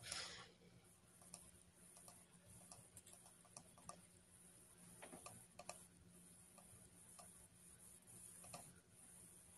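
Near silence: faint room tone of a video call with a steady low hum, a brief breathy hiss right at the start and scattered faint clicks.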